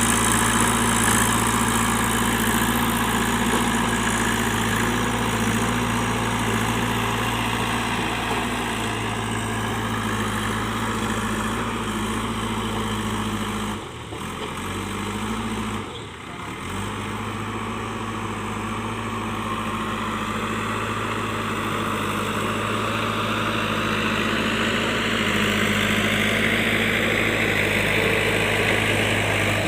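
JCB 3DX backhoe loader's diesel engine running steadily at an even pitch, dipping briefly twice around the middle. Near the end a higher whine rises over it.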